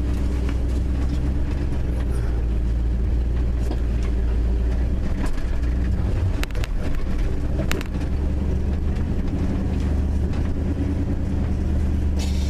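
1974 Ford F250's engine running steadily at low speed as the truck creeps forward and comes to a stop, with a few sharp clicks about six to eight seconds in.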